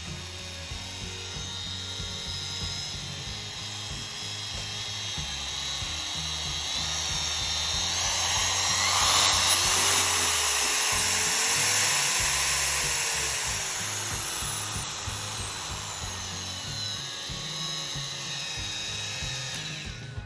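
Bosch GWS 7-100 ET 720 W variable-speed angle grinder running with no disc fitted. Its motor whine rises in pitch and loudness over a few seconds as the speed is turned up, holds at the top, then falls again. Background music plays underneath.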